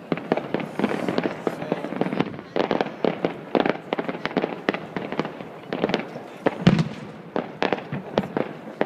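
Aerial fireworks going off: a fast, irregular run of sharp bangs, the loudest about two-thirds of the way through.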